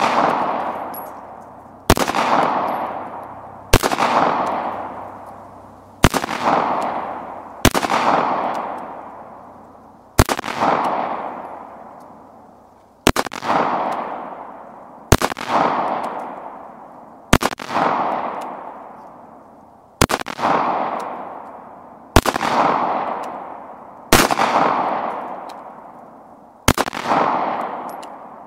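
Semi-automatic pistol fired in slow, deliberate single shots, about one every two seconds, a dozen in all, each crack followed by a long fading echo.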